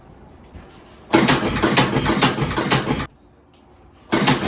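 A rapid mechanical rattle of densely packed clicks, in two bursts of about two seconds each: the first starts about a second in and stops about three seconds in, the second starts near the end.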